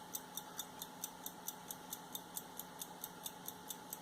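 A late-1800s English fusee lever pocket watch ticking steadily, about five even ticks a second, as its balance wheel swings.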